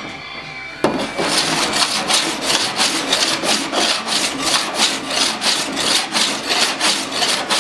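Body file drawn back and forth across a steel car door panel in quick, even rasping strokes, starting about a second in: file-finishing the panel to show up the high and low spots left after heat-pulling the dents.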